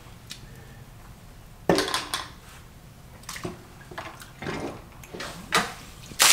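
A few scattered knocks, scrapes and light splashes, the loudest about two seconds in, as a sump pump on its white PVC discharge pipe is handled down into a flooded pit.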